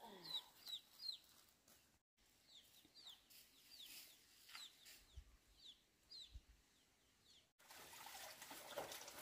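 Chickens peeping: short, high calls, each falling in pitch, repeated two or three times a second, stopping about two-thirds of the way through. A faint outdoor hiss follows.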